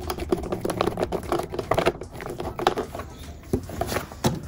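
Flathead screwdriver turning the worm screw of a stainless steel hose clamp tightened around an aluminium spar: rapid, irregular metallic clicking and scraping, with a few stronger clicks near the end.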